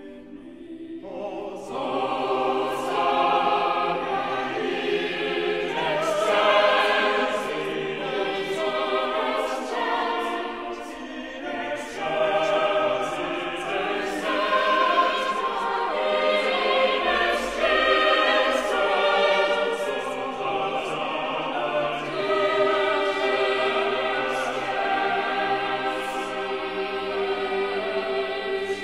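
Background music of choral singing, with sustained wavering sung notes. It swells up over the first couple of seconds.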